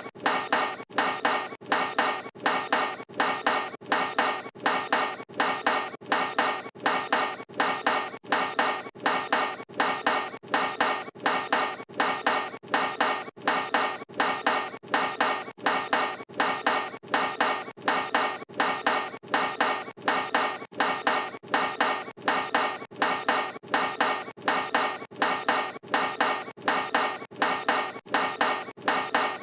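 Basketball clanging off a metal hoop rim on missed shots, over and over in a steady repeating rhythm, each clang ringing briefly.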